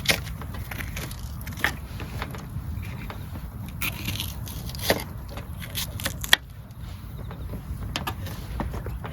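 Scattered clicks, crackles and rustles of things being handled, a couple of sharper clicks about five and six seconds in, over a steady low rumble.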